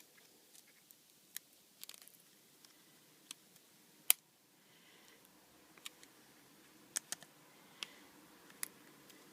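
Small, sharp clicks and taps of a phone's parts being handled during reassembly, as a ribbon cable is worked into its connector; about a dozen irregular clicks, the loudest about four seconds in.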